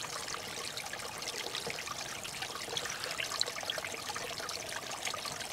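Running water trickling steadily, with many small splashes.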